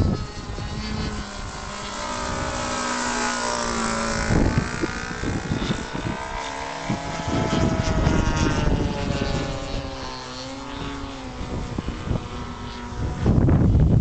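Model aeroplane's Super Tigre 25cc glow engine running in flight overhead, its note rising and falling several times. Gusts of wind buffet the microphone at the start and again loudly near the end.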